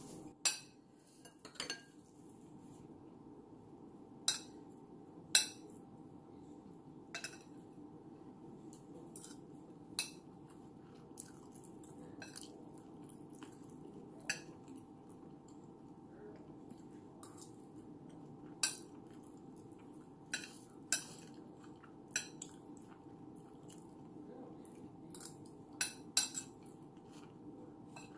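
A metal spoon clinking and scraping against a plate now and then while someone eats, about twenty sharp clicks at irregular intervals, some in quick pairs. A faint steady hum lies underneath.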